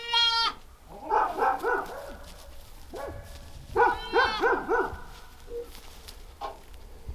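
Goat kids bleating: about four wavering, high-pitched bleats, the loudest about 4 seconds in.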